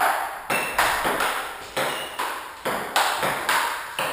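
Table tennis rally: the celluloid ball clicking off the paddles and the table in a steady back-and-forth, about two hits a second, each sharp tick trailing off in a short echo.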